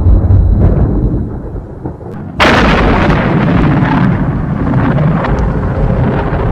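Thunder: a low rumble fades, then about two and a half seconds in a sudden sharp crack of a close lightning strike breaks into a long rolling rumble.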